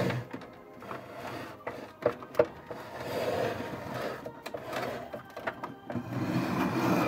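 Hard plastic toy camper trailer being pushed and handled: scraping and rubbing of plastic with a few sharp clicks, two close together about two seconds in, over soft background music.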